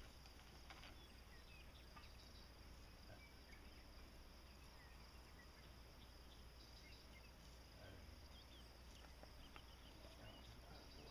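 Near silence: faint outdoor ambience, a steady high insect drone with a few faint scattered chirps.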